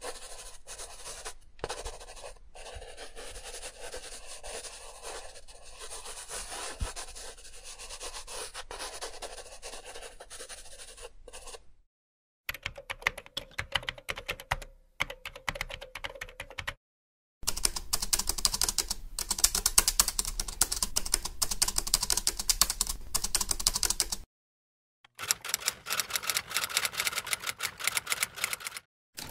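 Rapid key clicking of typing, in four separate takes, each cut off abruptly by a short dead silence.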